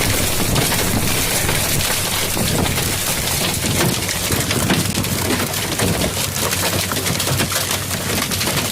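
Hail and heavy rain falling hard: a dense, steady patter of many small impacts.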